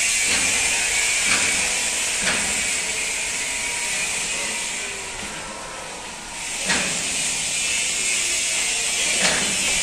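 Steady high hiss of a power tool running in a truck-body workshop, easing off briefly around five to six seconds in, with a few sharp knocks.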